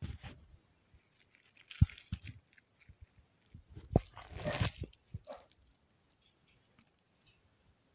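Plastic postal parcel being handled and torn open: two spells of crinkling and tearing, each with a sharp knock, about two and four seconds in.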